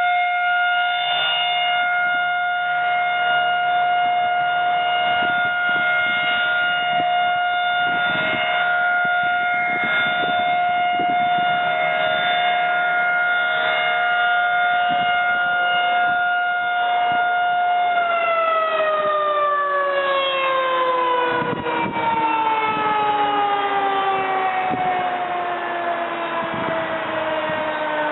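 Federal Signal Model 2001 rotating outdoor warning siren sounding a steady alert tone, then, about two-thirds of the way in, starting to wind down with its pitch falling steadily: the end of the 3-minute alert signal.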